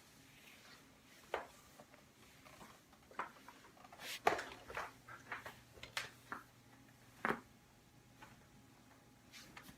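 A series of short, sharp cracks and pops, the loudest about four seconds in: spinal joints cracking during chiropractic neck and back adjustments.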